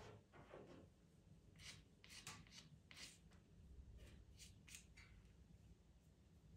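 Faint scratching of a pastel pencil drawing on pastel paper: a quick run of short strokes starting about a second and a half in.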